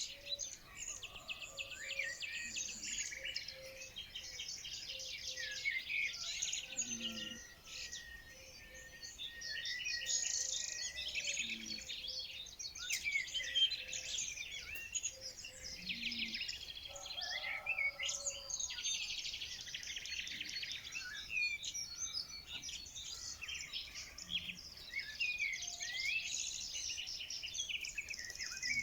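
Many wild birds singing and chirping at once, a dense chorus of overlapping high chirps and trills, with a faint low note repeated at an even pace underneath.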